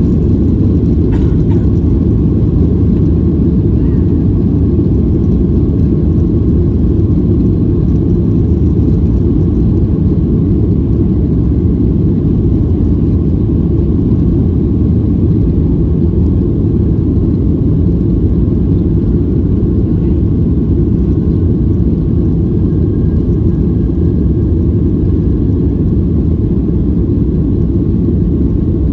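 Jet airliner engines and the airframe rolling on the ground, heard from inside the passenger cabin as a steady low rumble that holds at the same level throughout.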